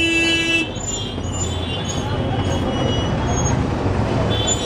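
A vehicle horn sounds one steady note for about half a second, then an engine runs under continuous street traffic noise, with a few faint high chirps and another short high-pitched horn or bell near the end.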